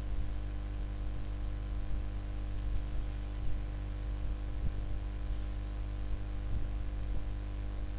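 Steady electrical mains hum and buzz with a thin high hiss, and a few faint clicks.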